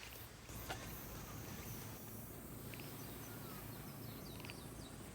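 Outdoor ambience: a steady low rumble with a few short, high bird chirps about four seconds in, and a faint click about a second in.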